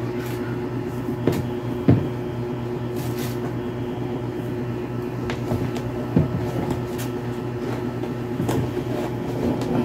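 Light handling sounds of a new sneaker being unpacked: a few sharp taps and clicks, about a second and two seconds in and again after six seconds, with a brief rustle near three seconds. A steady low electrical hum runs underneath.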